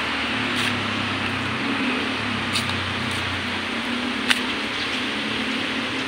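Steady hiss of outdoor background noise with a low droning hum underneath, and a few faint ticks, the sharpest about four seconds in.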